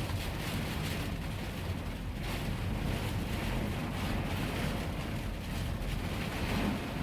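Heavy rain and strong gusting wind in a severe thunderstorm, a steady rushing noise that swells and eases with the gusts.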